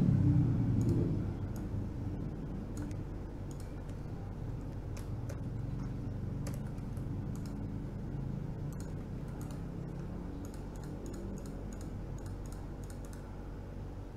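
Scattered clicks of a computer mouse and keyboard keys, coming closer together near the end, over a steady low hum. A louder low rumble fades out in the first second or so.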